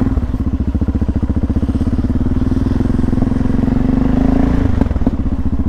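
Yamaha XT660R's single-cylinder four-stroke engine running through a LeoVince exhaust, a rapid steady pulse at low to middling revs. The revs climb a little, then dip briefly near the end.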